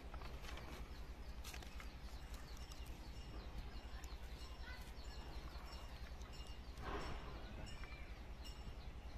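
Faint outdoor background: birds chirping over a low steady hum, with a brief soft rustle about seven seconds in.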